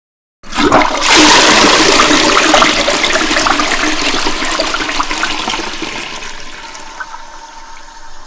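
Toilet flushing: a sudden rush of water that starts about half a second in, is loudest over the next two seconds and then slowly fades, with a thin steady tone coming through near the end.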